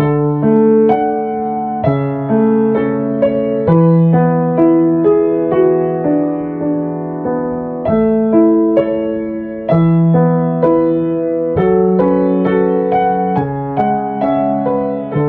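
Solo piano music: a melody over chords, with new notes struck about every half second to a second.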